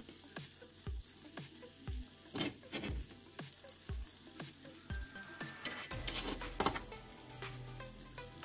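Shredded cheese sizzling and crackling on the hot plate of a Dash mini waffle maker. Under it runs soft background music with a low thump about once a second.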